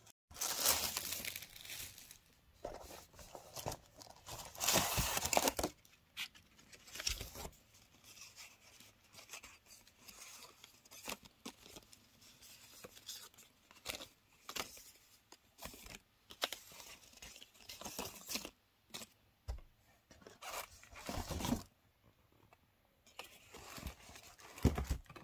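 Tissue paper rustling and crinkling inside a paper shopping bag, loudest in the first few seconds. Then shorter rustles, taps and scrapes as stiff paper cards and a cardboard box are handled.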